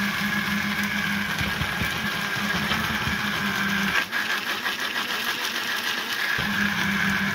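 Electric blade coffee grinder running steadily, grinding mixed grain into coarse feed; a constant motor whine with a low hum that drops away for about two seconds in the middle, then returns.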